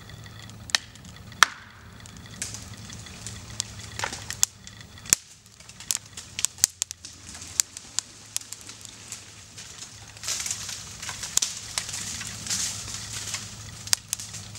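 Irregular sharp cracks and snaps from the wood fibres of a partly cut poplar's felling hinge as the tree leans further over: the hinge beginning to crack and fail. A quick cluster of snaps comes about five to seven seconds in.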